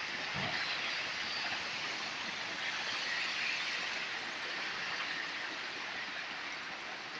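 Heavy rain falling on wet, puddled pavement: a steady, even hiss.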